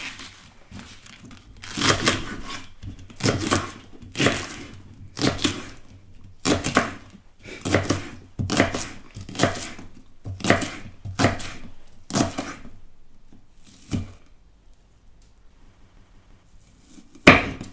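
Kitchen knife chopping spring onions on a wooden chopping board: a run of short cuts about a second apart, then two more spaced out, the last and loudest near the end.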